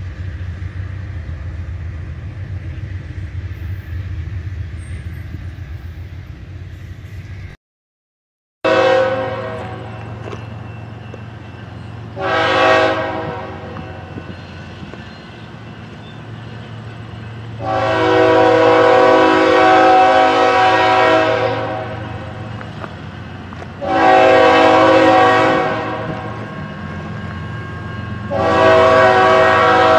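Low drone of a passing Amtrak passenger train; then, after an abrupt cut, a diesel freight locomotive's horn sounds five blasts, two short then three long, over a steady low engine hum as the train nears a grade crossing.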